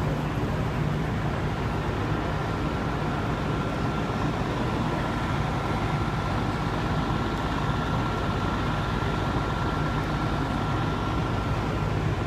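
Fire trucks' engines running steadily at a fire scene, a constant low drone. A thin steady whine joins about a second in.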